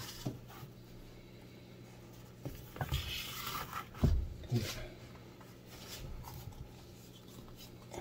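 Wooden spatula stirring and scraping thick semolina fufu in a glass bowl, with a few knocks against the bowl in the middle.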